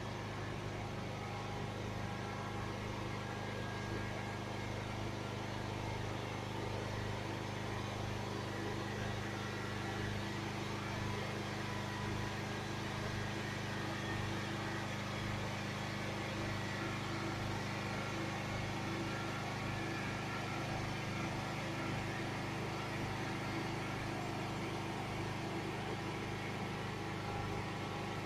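Steady mechanical hum with a constant hiss, like a motor or engine running without change.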